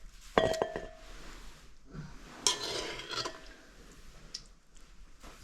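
Cutlery and dishes clinking during a meal: a sharp ringing clink about half a second in, then softer scrapes and scattered small clicks.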